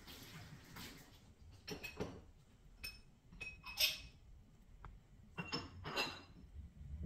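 A few light clinks of hard objects, the loudest about four seconds in and a couple more near the end, over a faint low hum.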